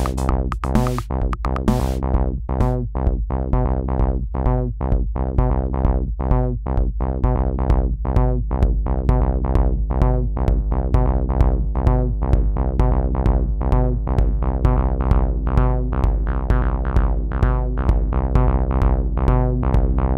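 Akai Rhythm Wolf analog drum machine and bass synth playing a fast looping pattern: short repeated synth notes about three a second with clicky drum hits over a steady low bass.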